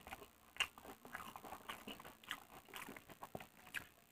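A person chewing and smacking his lips while eating pakhala, rice soaked in water, by hand: irregular wet mouth clicks, one sharper smack about half a second in.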